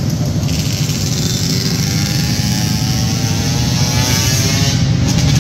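Small 50cc and 65cc youth motorcycles lapping an indoor dirt track, their engine buzz rising and falling in pitch in the second half as a bike speeds up and eases off. A steady low hum sits under it throughout.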